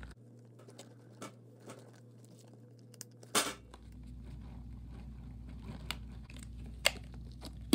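Rubber balloon filled with Orbeez water beads being handled and worked off a plastic container: rubbing and crinkling with scattered clicks. The loudest rustle comes about three and a half seconds in, and there is a sharp click near the end.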